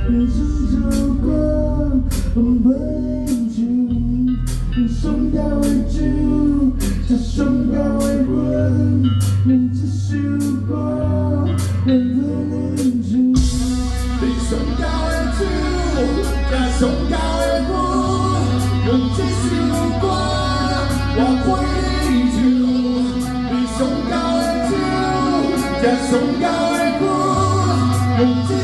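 A band song: singing over guitar, a bass line and a steady drum beat, growing fuller about halfway through.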